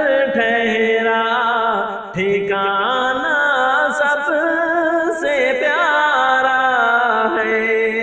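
Naat sung in devotional style: voices holding long, ornamented notes that waver and bend in pitch, with no instruments or percussion.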